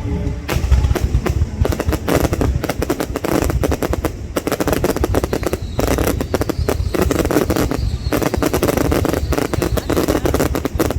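Fireworks going off in a dense, continuous barrage of rapid bangs and crackles, many per second, with brief lulls about four and six seconds in.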